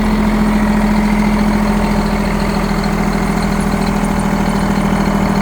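Freightliner truck's diesel engine running steadily at idle, with a constant hum.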